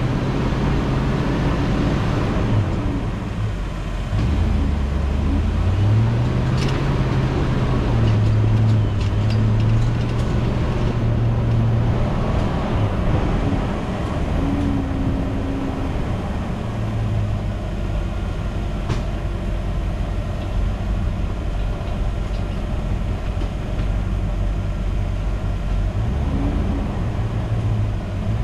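Land Rover engine running at low speed off-road, its revs dipping and rising several times, with a few sharp knocks from the vehicle, the first about six seconds in.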